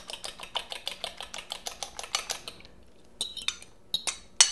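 Metal utensil clinking quickly against mixing bowls, about six clinks a second, while beaten eggs are poured into a bowl of flour; the clinking stops about two and a half seconds in, and after a short pause come four separate sharper clinks, the last near the end the loudest.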